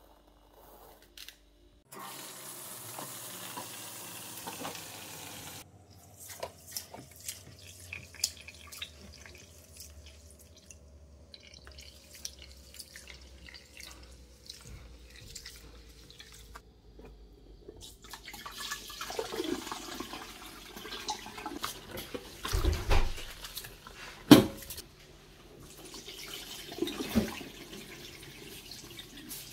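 Raw rice being washed by hand in a plastic bowl of water: a few seconds of steady rushing water about two seconds in, then grains clicking and water sloshing as the hand swirls through them. The splashing grows louder in the last third, with one sharp knock against the bowl.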